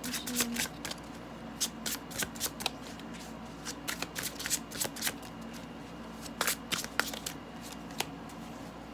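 A deck of tarot cards being shuffled by hand, in bursts of quick card flicks and snaps with short pauses between. Near the end there is a single snap as a card is laid down on the cloth.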